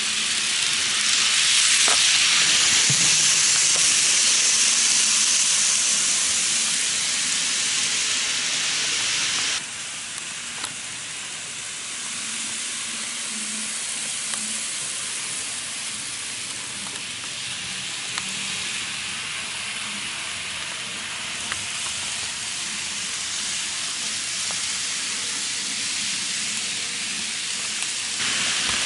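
N-gauge model trains running on the track, a steady hissing whir of small motors and wheels on rails, with an occasional light click. The level drops abruptly about ten seconds in.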